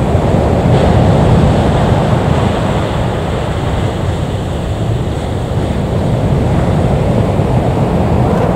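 Wind buffeting the microphone: a steady low rumble with no separate events.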